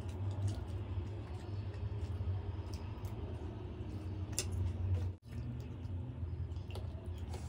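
Eating sounds: a steel fork clicking and scraping in macaroni on a steel plate, and chewing, over a steady low hum. The sound drops out briefly about five seconds in.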